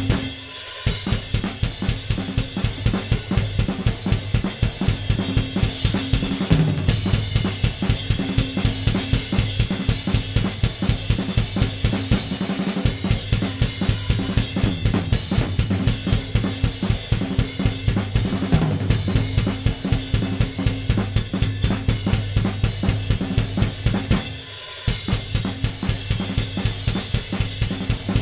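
Recorded drum kit playing back from the mix session through the UAD Fatso tape-and-saturation plugin: a fast, steady beat of kick, snare, hi-hat and cymbals. Playback breaks off briefly just after the start and again about 24 seconds in, as the passage starts over.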